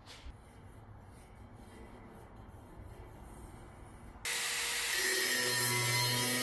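Faint rubbing and handling as a paper template is marked against the pipe, then, about four seconds in, an angle grinder starts abruptly and runs steadily, its disc grinding the edge of a cut-out hole in stainless steel pipe with a loud hiss and whine.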